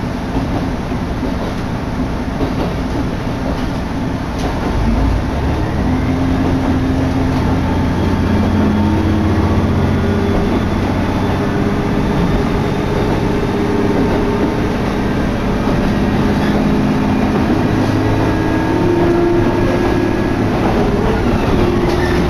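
Diesel railcar running at speed, heard from inside the carriage: a steady rumble of wheels on rails with an engine hum, growing louder about five seconds in.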